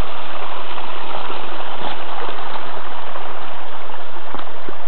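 Stream water spilling over a small check dam of loose rocks and branches, a steady rushing noise: the dam is full and overflowing.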